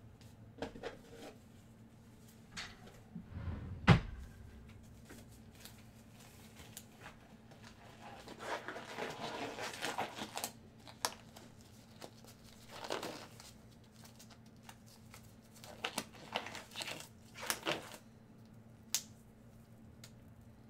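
Intermittent crinkling and rustling of plastic being handled at a desk, with scattered light clicks and one sharp knock about four seconds in.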